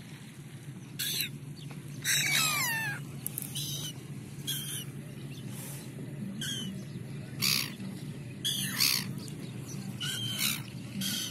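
Gulls calling: a string of about nine short calls, several sliding down in pitch, with one longer falling call about two seconds in, over a steady low hum.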